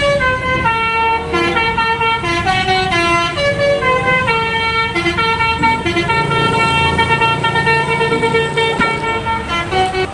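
Telolet bus horn, a multi-note air horn, playing a quick tune of stepped notes with a low vehicle rumble underneath.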